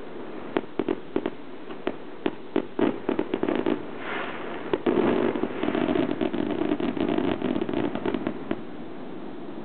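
Fireworks going off: a string of separate sharp bangs, then from about five seconds in a dense run of crackling bursts, the loudest part, which stops shortly before the end.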